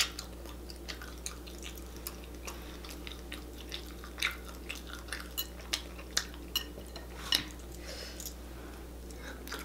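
Eating sounds: scattered wet clicks and smacks as saucy chicken and seafood-boil pieces are picked out of a glass bowl by hand and chewed. The clicks come irregularly, a few louder ones standing out.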